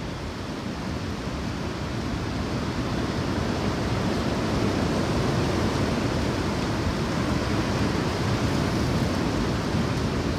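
A steady rushing noise like surf or wind, with no distinct strokes or tones. It swells over the first few seconds and then holds.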